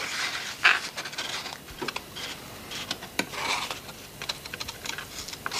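Light, irregular clicks and short scraping rustles, as of small hard objects being handled.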